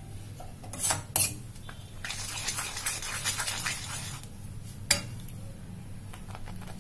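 Steel spoon stirring and scraping a wet vermicelli-and-milk mixture around a metal kadhai, with sharp clinks of the spoon against the pan twice about a second in and once near five seconds.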